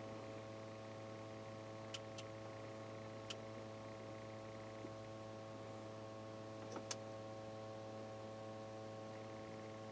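A steady low hum with a handful of faint, short clicks scattered through it.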